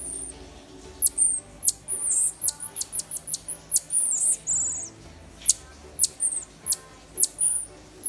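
Baby marmoset giving a rapid series of very high-pitched chirps and squeaks, short downward-sweeping calls several a second, over faint background music.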